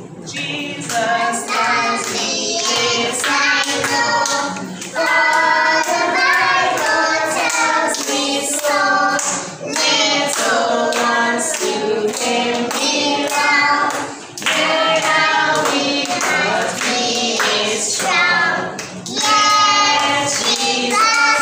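A group of young children singing a song together, with hands clapping along in a steady beat.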